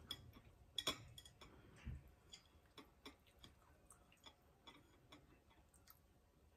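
Faint, irregular small clicks and ticks of fingers and long fingernails picking kernels off a boiled corn cob, the sharpest a little under a second in.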